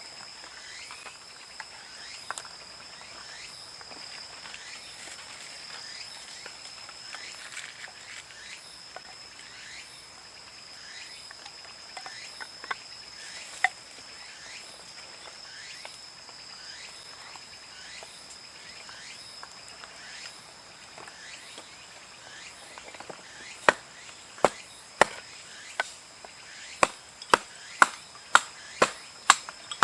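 Steady chorus of crickets or other insects, a continuous high trill. About three-quarters of the way in, a run of sharp knocks starts, roughly two a second, the loudest sounds here, typical of chopping or striking at a campsite.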